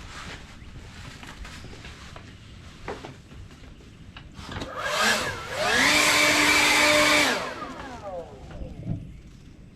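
Electric motor of battery-powered lawn equipment spinning up with a rising whine, holding at full speed for a second or two, then winding down as it is released.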